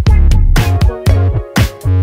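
Background music with a steady drum beat and a deep bass line.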